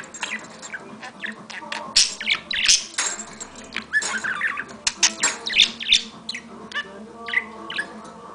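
Pet bird chirping in quick runs of short, sharp calls, some sliding in pitch, busiest about two and five seconds in.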